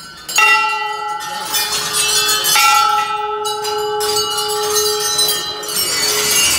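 Hanging temple bells rung by hand one after another, several bells clanging and ringing on together in long overlapping tones, with two especially strong strikes about half a second and two and a half seconds in.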